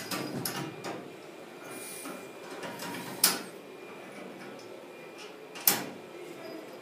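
Two sharp knocks about two and a half seconds apart, with rustling and scuffling near the start.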